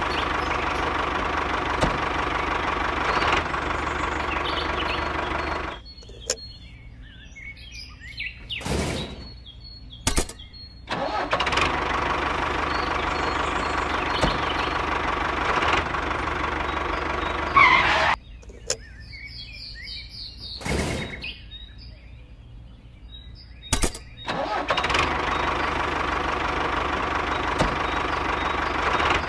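A motor running steadily with an even, engine-like pitch. It cuts out twice for about six seconds and starts again each time. In the quiet gaps, birds chirp and there are a couple of sharp knocks.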